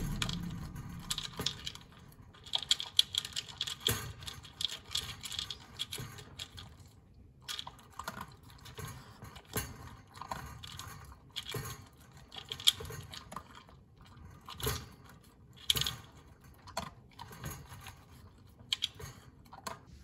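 An Australian Shepherd eating from a plastic slow-feeder bowl: irregular clicks, clatter and crunching as the food knocks against the bowl and is chewed, a quick run of them in the first few seconds, then sparser.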